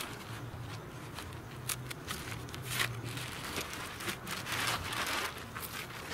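Plastic wrapper of a compressed peat moss bale crinkling and rustling as it is slit open and pulled off. The longest, loudest rustle comes about four and a half seconds in.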